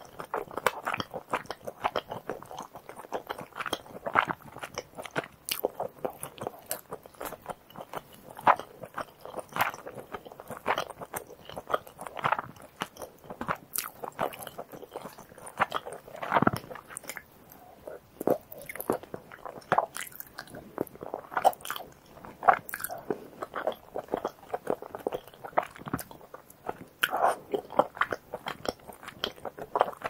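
Close-miked eating sounds of tteokbokki: chewy rice cakes in creamy rosé sauce with melted cheese being bitten and chewed, a steady run of short wet mouth clicks and smacks. One louder sound comes about halfway through.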